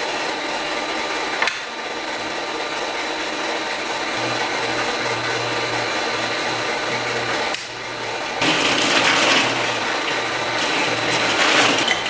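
Steady running noise of milk-house machinery, with the hiss of a hose nozzle spraying water into a stainless sink. It breaks off briefly twice, and louder rushing noise comes in two stretches in the last four seconds.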